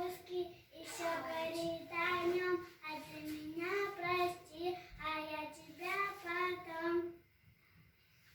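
A young girl singing a tune in short phrases of held notes, stopping about seven seconds in.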